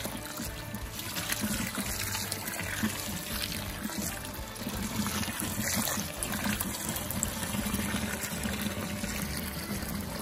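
Water running from a garden hose into a bucket of wood ash, steadily filling it, the hose end mostly under the surface and churning up bubbles.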